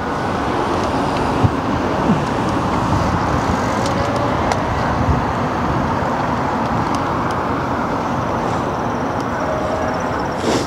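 Steady road traffic noise: motor vehicles running along a busy road, an even rush with a few faint clicks.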